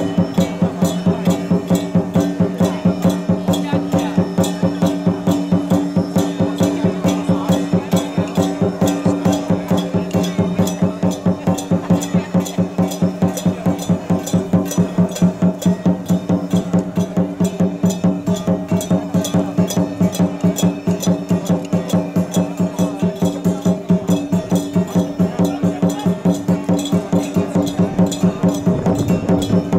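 Traditional music with a fast, even wood-block-like beat over steady held tones.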